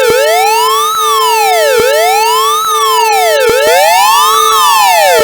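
Loud synthesized police-style siren sound effect: the pitch rises and falls back in smooth arches about every 1.7 seconds over a steady drone tone. A second, offset sweep joins about three and a half seconds in, so the two wails overlap.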